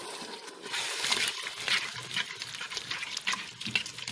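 Brinjal and radish masala sizzling and bubbling in the hot pan just after water has been poured in, with many irregular crackles.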